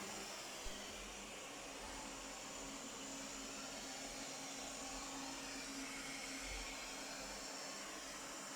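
Robot vacuum cleaner running, a steady hum with a low tone through it.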